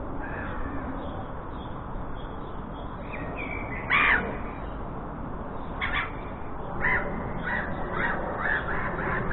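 Jackdaws calling with short, sharp calls over a steady low background noise: one loud call about four seconds in, a couple more, then a quicker run of short calls near the end.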